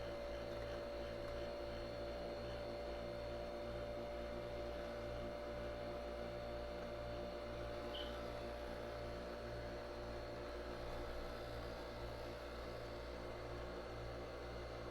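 Nespresso Vertuo Pop+ capsule coffee machine's motor running with a steady hum: one constant mid tone over a low drone that wavers slightly.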